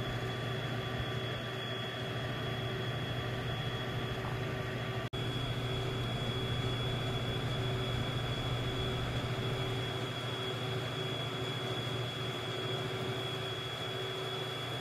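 Running DLP projector: a steady mechanical hum and rush of air with a thin, steady high whine over it, dropping out for an instant about five seconds in.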